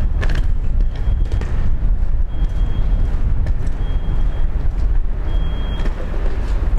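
Steady low rumble of a moving vehicle, with a reversing alarm's single high tone beeping about every second and a half.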